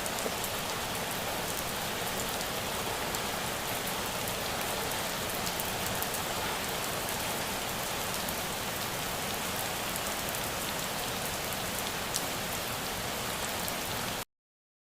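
Steady rain falling on a surface, an even hiss with many fine drop ticks, that cuts off suddenly near the end.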